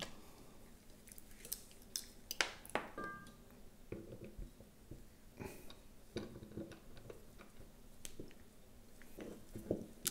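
Scattered light clicks, taps and rustles of hands feeding the tail-light wiring cable through the parts of an Evotech tail tidy, with a brief squeak about three seconds in.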